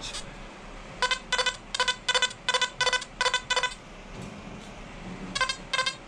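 XP Deus metal detector giving a quick run of about eight equal-pitched electronic target beeps, roughly two and a half a second, as a piece of foil is swept back and forth over its coil, then more beeps near the end. On the foil the tone is an overload tone.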